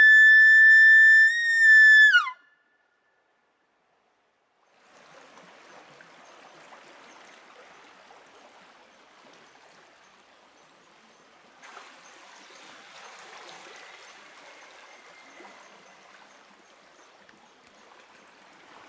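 Elk bugle call blown close by: a whistle that climbs steeply to a high note, holds it for about two seconds and breaks off sharply. After a brief silence, the soft steady rush of a flowing river.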